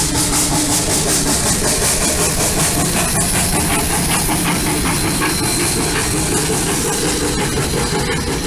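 1881 Baldwin-built Denver & Rio Grande Western C-16 steam locomotive No. 346 running past with its train, steam hissing steadily over the low running noise.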